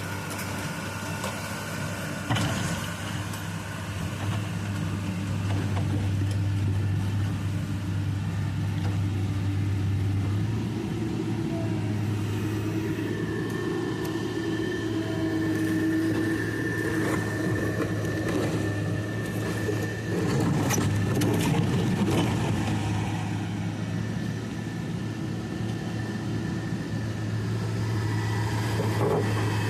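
Excavator's diesel engine running steadily under working load, its note shifting as the hydraulics work. A sharp knock comes about two seconds in, and a cluster of knocks and clatter from the bucket and soil follows about two-thirds of the way through.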